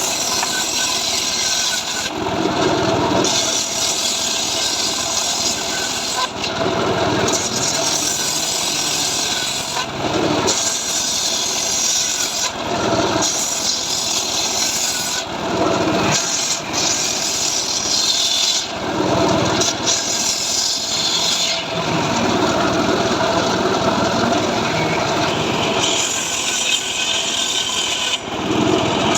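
Power saw running and cutting through dry mahogany wood, the sound shifting every two to three seconds as the blade bites and eases off.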